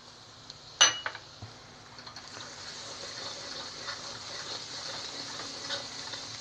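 A single ringing metallic clink about a second in, then onion-tomato masala frying in ghee sizzles steadily in the pan, with faint ticks of stirring.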